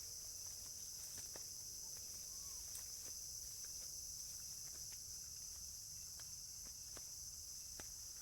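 Steady high-pitched drone of an insect chorus, crickets or cicadas, with scattered faint ticks and taps.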